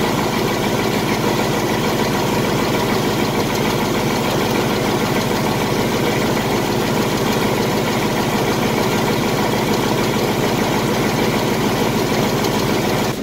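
2018 Ford Mustang GT's 5.0-litre Coyote V8 idling steadily while warming up after a cold start, heard from beneath the car. The engine's known tick is faint at idle, only a little of it coming through.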